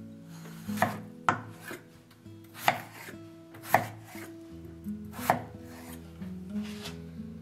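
Kitchen knife slicing through peeled raw potatoes on a wooden cutting board. There are about five cuts at uneven intervals, each a short slicing swell ending in a sharp knock of the blade on the board.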